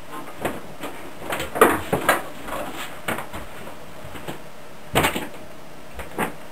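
Knocks and clatter of metal-cased radio gear being handled: a boxy unit lifted off an amplifier and set down. The loudest clunks come a little under two seconds in and again at about five seconds.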